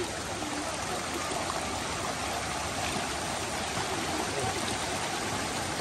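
Shallow mountain stream rushing steadily over rocks and stones.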